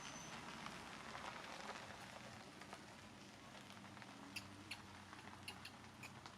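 Faint outdoor ambience: a steady low hiss with a few soft, sharp clicks in the second half.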